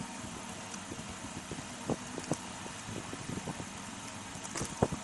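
Jiggly slime being squished and worked by hand, giving irregular small wet pops and clicks over a steady background hiss.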